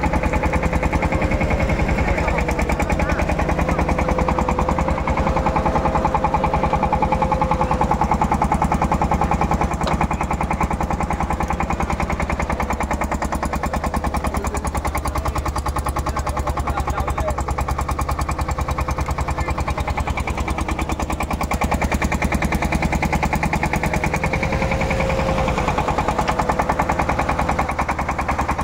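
A fishing boat's engine idling: a steady, rapid, even chugging that never lets up.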